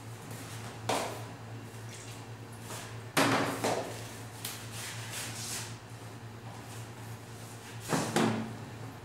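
A few knocks and clatters of things being handled in a kitchen, the loudest about three seconds in and two more near the end, over a steady low hum.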